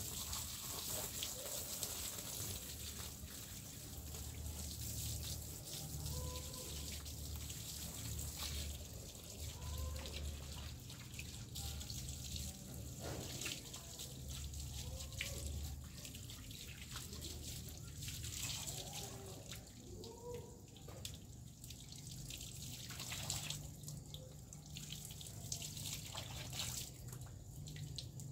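Water trickling and splashing with scattered drips, over a low steady hum.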